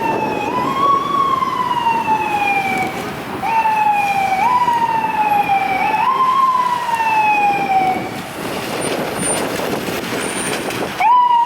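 Emergency vehicle siren on responding apparatus, sounding in repeated sweeps that each rise sharply and fall slowly in pitch, several in a row. It pauses for about three seconds with only engine and traffic rumble, then sweeps up again near the end.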